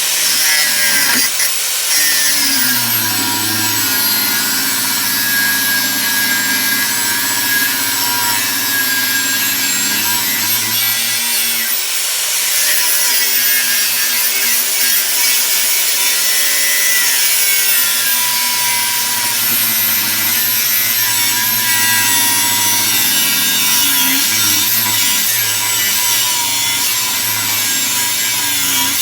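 An electric grinder working the steel of a khopesh blade: a continuous grinding noise over a motor whine whose pitch drifts slightly as the load changes.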